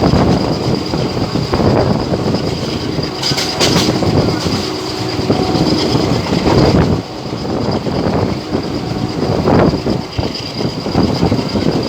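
Diesel-hauled passenger train running through a station at speed without stopping, its wheels clattering over rail joints in a steady run of knocks, with a faint wheel squeal.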